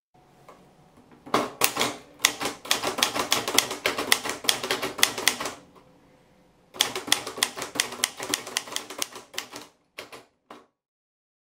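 Olivetti Lettera 25 manual typewriter being typed on: rapid key strikes in two runs of several seconds each, with a pause of about a second between them, then a few last strikes near the end.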